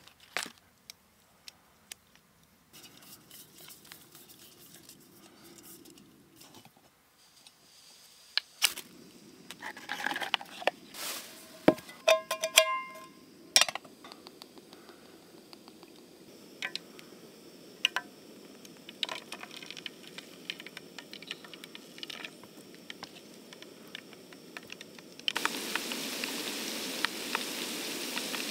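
Metal cookware clinking and knocking, with a pot or pan ringing briefly about 12 seconds in. Near the end a steady sizzle starts suddenly: the spiral-cut potato going into hot fat to fry.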